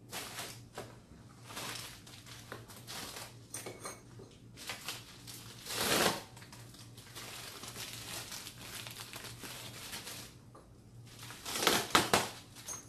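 Packaging crinkling and rustling as a mailed package is opened by hand, in irregular bursts, the loudest about six seconds in and again near the end.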